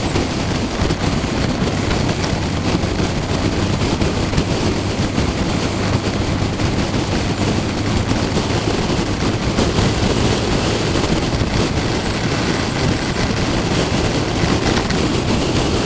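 Wind buffeting the microphone of a touring motorcycle on the move, a dense rapid crackle over the steady hum of the engine and road noise, with no letup.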